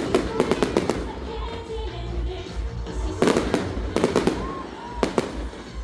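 Fireworks going off in volleys of sharp bangs and crackles: a quick cluster at the start, another about three seconds in, and a few more near the end, over background music.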